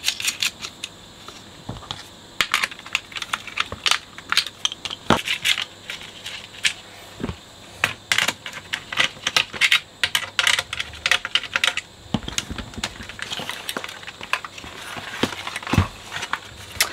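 Repeated small metallic clicks, taps and rattles of hands fitting a nut and handling a 1970s radio chassis, coming in irregular clusters with short pauses between them.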